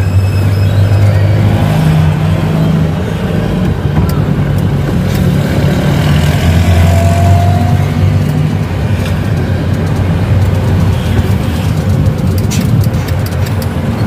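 Ten-wheeler truck's diesel engine running heavily, heard from inside the cab as the truck pulls forward slowly, with a few sharp clicks near the end.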